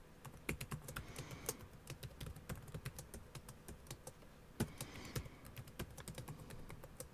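Typing on a computer keyboard: a faint, irregular run of key clicks, several a second.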